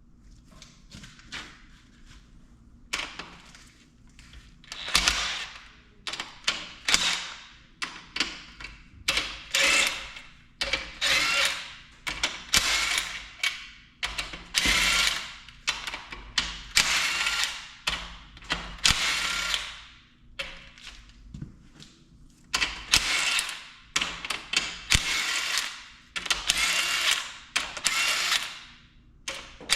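Hand ratchet wrench clicking in repeated strokes, about one stroke a second, with a short pause about two-thirds of the way through.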